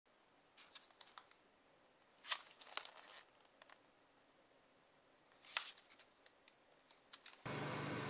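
A few light crackles and taps of a clear plastic takeaway ramen tray and its lid being handled. Near the end a microwave oven starts running with a steady hum.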